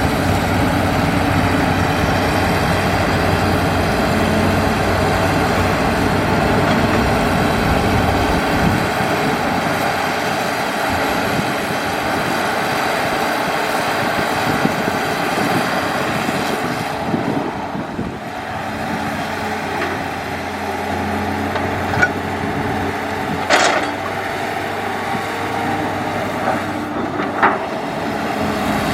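Hitachi excavator's diesel engine running steadily while working; its low drone eases off about nine seconds in. A few sharp knocks come in the last third.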